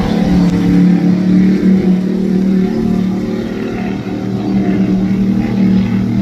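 Offshore racing powerboat's engines running steadily at speed on practice laps, a low, even engine drone.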